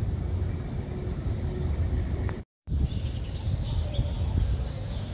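A low, uneven rumble, and after a brief dropout about two and a half seconds in, birds chirping over it.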